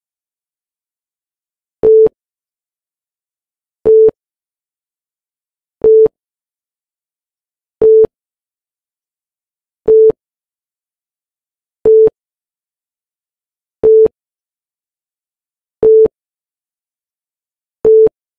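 Electronic countdown-timer beeps: nine short, identical beeps on one steady tone, evenly spaced about two seconds apart, with silence between them.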